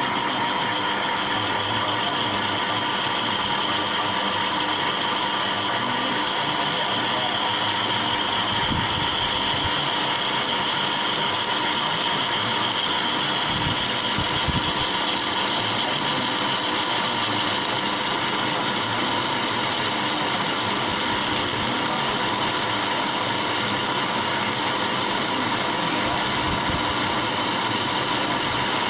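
A machine running steadily: a continuous mechanical hum with a steady high whine.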